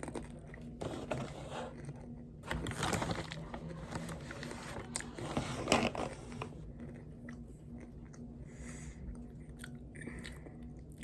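A person chewing a mouthful of chocolate snack close to the microphone, in uneven stretches, loudest about a third and halfway through.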